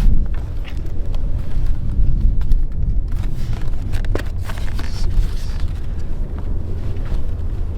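Strong wind buffeting the microphone: a loud, uneven low rumble, with a few faint clicks.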